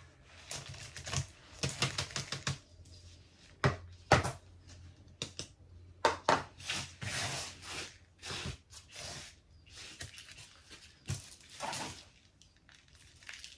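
Irregular short clicks, taps and scrapes of hands working loose potting mix on a fabric mat and handling plastic pots and tubs, as spilled soil is swept together and pressed into a plastic nursery pot around a plant.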